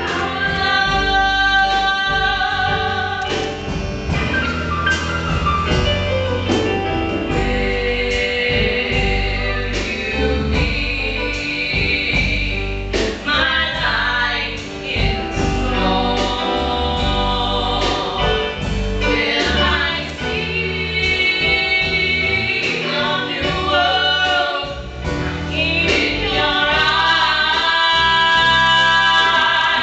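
Two female voices singing a duet into handheld microphones, with sustained sung notes over an instrumental accompaniment with a strong bass.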